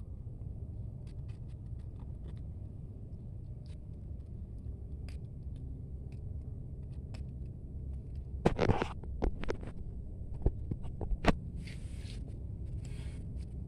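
Kittens eating dry cat kibble off a mat: faint crunching clicks over a steady low background rumble. A cluster of louder knocks and scrapes comes about two-thirds of the way in, and three short hissy noises come near the end.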